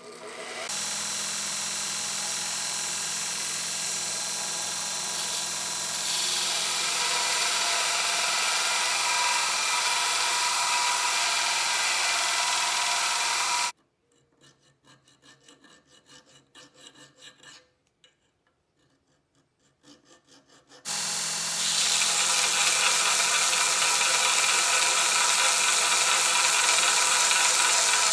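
Power grinder grinding a forged coil-spring steel knife blade: a steady motor hum under a harsh grinding hiss that swells as the steel is pressed to it. It stops suddenly about halfway and resumes loudly about seven seconds later.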